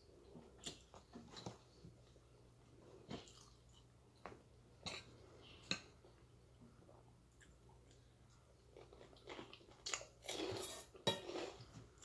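Quiet chewing with a metal spoon clicking now and then against a ceramic plate. Near the end comes a louder run of clinks and scraping as the spoon dips into a stainless steel bowl.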